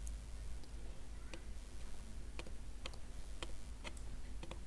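Sparse, irregular light clicks and taps of small tools against the phone and its parts during soldering work, over a faint steady hum.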